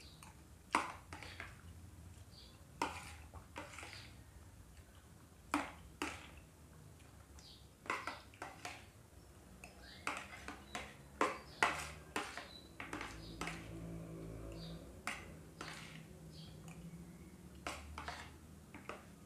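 An eating utensil clinking and scraping on a plastic plate while someone eats, in scattered sharp taps at an irregular pace.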